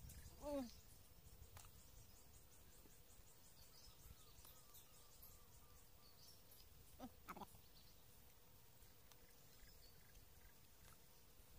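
Near silence with faint outdoor ambience and faint high chirping, broken by a short falling call about half a second in and two brief calls at about seven seconds.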